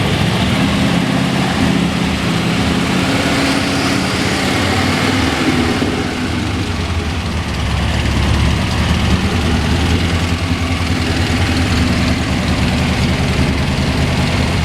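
1957 Ford Thunderbird's 312 V8 with dual four-barrel carburetors, exhaust running out through the bumpers, idling steadily. It dips briefly about six seconds in, then rumbles stronger around eight seconds.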